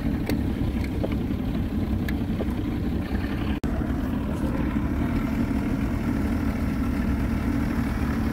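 Motorboat engine running steadily. The sound breaks off for an instant about three and a half seconds in.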